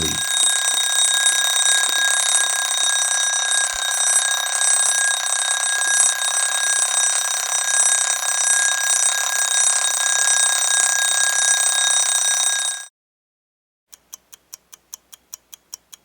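Alarm clock ringing continuously, then cutting off suddenly. After a second of silence the clock ticks steadily, about four ticks a second.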